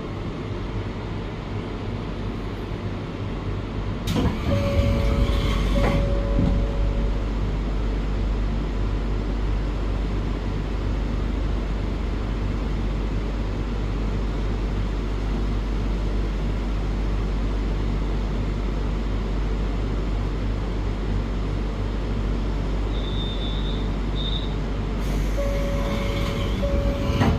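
The automatic sliding door of the u-seat car on a JR Hokkaido 785 series electric train opens and closes twice, about 4 s in and again near the end. Each time the door movement comes with a short two-note chime, over the steady low rumble of the train. Two brief high beeps sound shortly before the second chime.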